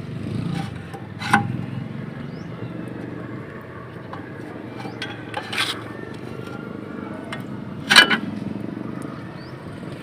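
A few sharp knocks and clicks from tools on a disc brake caliper as its piston is pushed back in with the bleeder valve open, over a steady low background hum. The loudest knock comes near the end.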